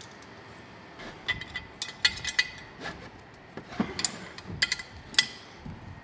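A run of sharp metallic clicks and clinks as a spanner works the bolts on a turbocharger's compressor housing and the cast housing is handled. The clicks come in a cluster about a second in and another near the end.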